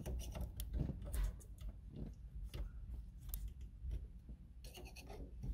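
Faint, irregular small metal clicks and scrapes of a jeweler's screwdriver and an awl picking at the wire snap ring in a GM tilt steering column, with a quick cluster of clicks near the end.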